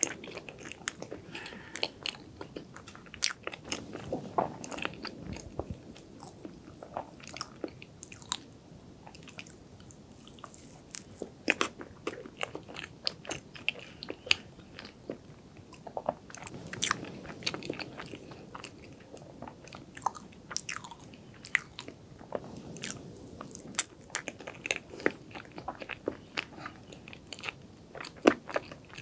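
Close-miked chewing of soft chocolate cake with dense cream-cheese frosting: wet mouth clicks and smacks coming irregularly, several a second, over a low chewing rumble.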